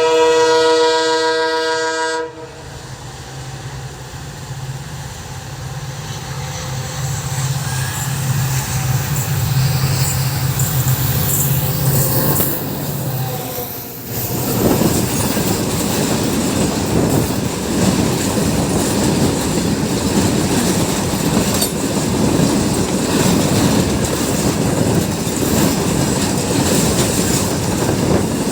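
An Indian Railways diesel locomotive sounds its horn for about two seconds, then its engine hum grows steadily louder as it approaches. About halfway through the hum gives way to the clatter of freight wagons rolling by over the rail joints.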